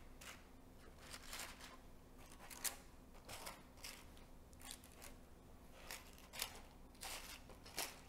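Faint, irregular crisp ticks and rustles of hands setting grapes into paper cupcake liners in a dessert box.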